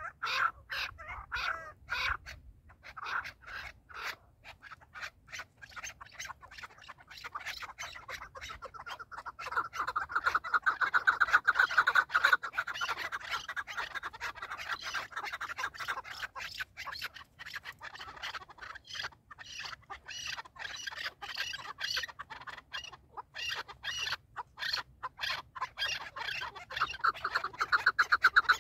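Chukar partridges calling: long runs of rapid, clucking chuck notes, loudest in a fast run about ten to twelve seconds in and again near the end.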